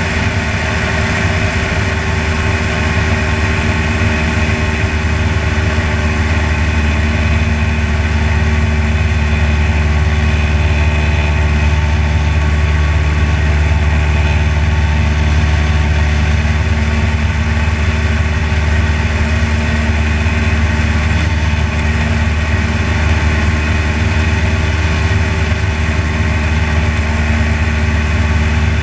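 Light aircraft's piston engine and propeller running steadily in cruise flight, a constant low drone that holds the same pitch throughout.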